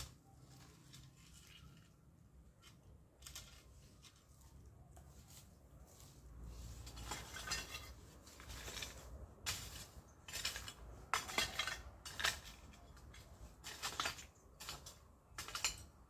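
Hand garden work in dry ground: a hoe scraping and chinking against soil and stones, with plants being pulled and rustled. It comes in irregular short strokes that grow busier after about six seconds.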